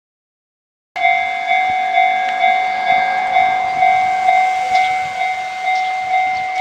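Japanese level-crossing warning bell ringing in a steady repeating 'kan-kan' pattern, a little over two strikes a second, starting about a second in.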